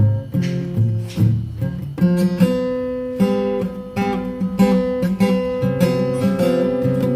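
Acoustic guitar strummed in a steady rhythm, chords ringing with no singing.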